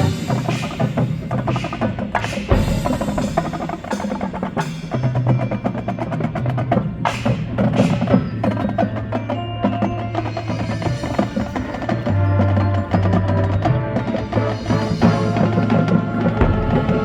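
High school marching band playing, with a lot of percussion: sharp wood-block and mallet strikes, chime-like ringing and drums over sustained low notes.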